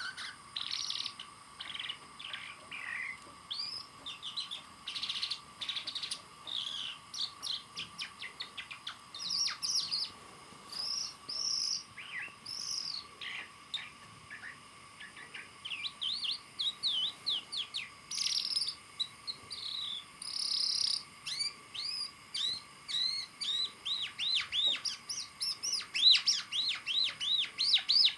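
Songbird singing a varied run of chirps and whistles that quickens near the end into fast repeated falling notes, over a faint steady high tone.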